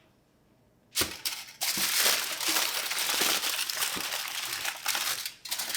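Aluminum foil crinkling and crackling as a sheet is handled and wrapped around a springform pan. It starts with a sharp rustle about a second in and goes on steadily, with a short pause near the end.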